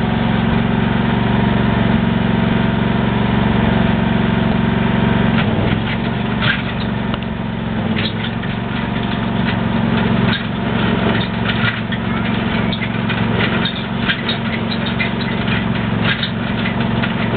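An engine running steadily with a low drone; from about six seconds in, scattered short clicks and ticks sit over it.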